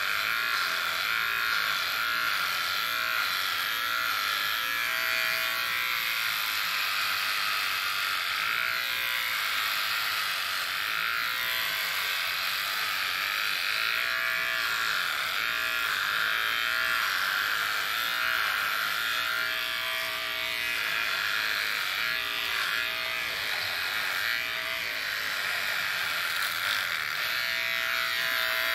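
Corded electric hair clippers running continuously as they cut hair, a steady buzz whose tone wavers slightly as they move over the head.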